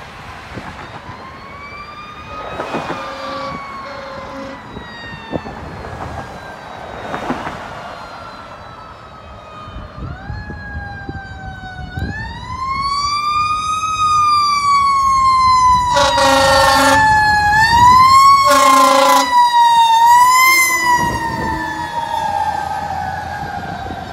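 Fire truck (quint) siren wailing, its pitch rising quickly and falling off slowly, growing louder as the truck approaches. Two long air horn blasts sound about two-thirds of the way in, the loudest part, with shorter horn blasts earlier and near the end.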